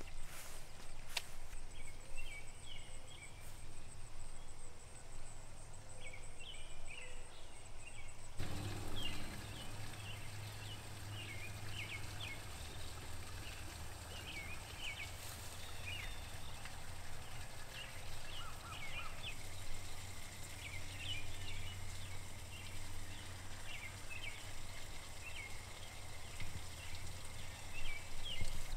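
Outdoor ambience of scattered short bird chirps over a steady low hum. About eight seconds in, the background changes abruptly and the low hum becomes stronger.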